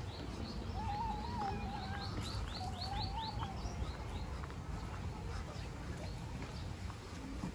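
Birds calling: a quick run of short, high, down-sliding chirps, about four a second, for the first few seconds, with a lower wavering call twice among them, over a steady low rumble.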